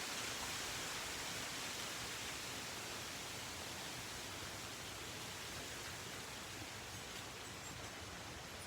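A steady, even hiss with no distinct calls or knocks in it, getting slowly a little quieter.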